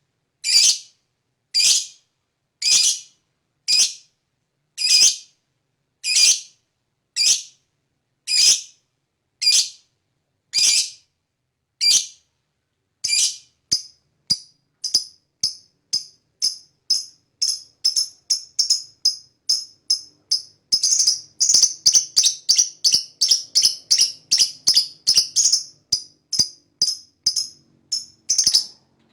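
Lovebird calling: shrill, harsh chirps about once a second. About halfway through they speed up into a rapid, continuous chatter of many calls a second, the long 'ngekek' call.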